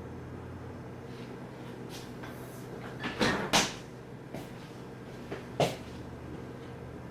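Kitchen clunks: two sharp knocks close together about three seconds in and another near the end, with a few softer taps, over a steady low hum.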